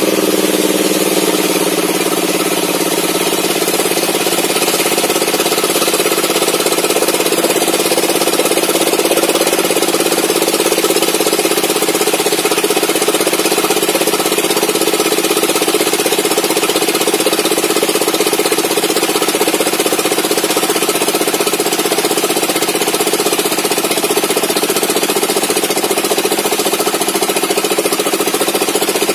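Homemade table saw's circular blade ripping an old mahogany log lengthwise, a loud, steady machine drone with the hiss of the cut.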